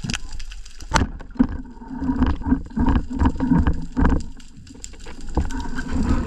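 Water sounds with a low rumble and many scattered clicks and knocks, one sharp knock about a second in.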